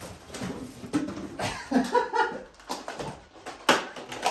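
A person's wordless vocal sounds, then sharp knocks, the loudest about three and a half seconds in.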